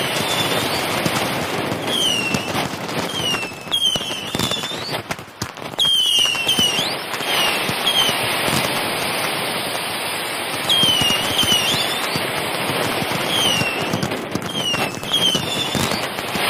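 Fireworks display going off in dense, continuous crackling with scattered bangs, under many short, high, swooping whistles. The loudness dips briefly about five seconds in.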